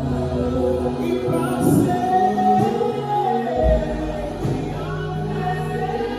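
A choir singing a gospel song, several voices in sustained lines over low held bass notes that shift to a new note about three and a half seconds in.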